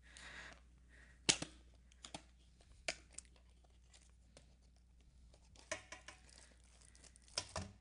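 Small printed cardboard box being opened by hand: a few sharp snaps and scrapes of card, the loudest a little over a second in, then softer rustling and scraping as the box is handled and emptied.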